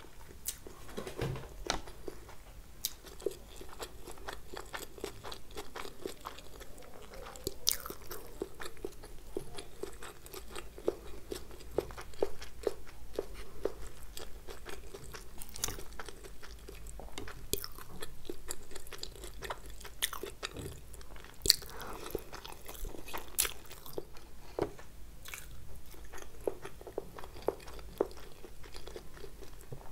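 Close-miked eating of noodles and momos: steady chewing and biting, with many short crunches and clicks throughout.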